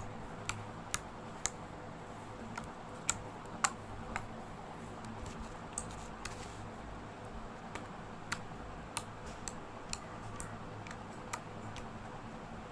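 Homemade glue slime being kneaded and squeezed by hand, giving irregular sharp clicks and pops, over a low steady hum.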